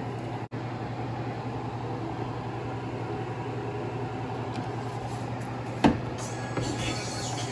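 A steady low mechanical hum in the kitchen, with one sharp knock about six seconds in, as a bottle is set down on the granite countertop.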